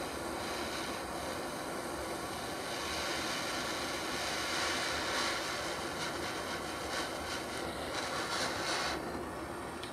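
Handheld butane torch running with a steady hiss, its flame heating a thermochromic banger on a dab rig before a dab. It cuts off at the very end.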